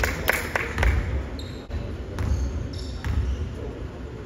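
Basketball bouncing on the court floor during play, a run of low thuds, with several sharp knocks in the first second.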